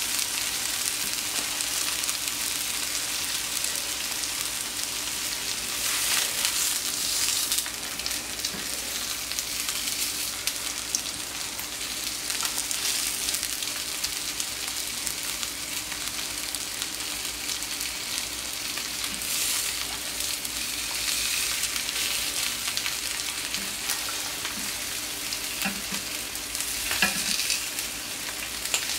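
Sous-vide-cooked beef short ribs and chuck sizzling steadily on a hot plancha atop a cooking sheet, with small crackles of fat: the sear that gives the long-cooked meat colour and crispness. Near the end a few sharp clicks and scrapes as a metal spatula moves the pieces.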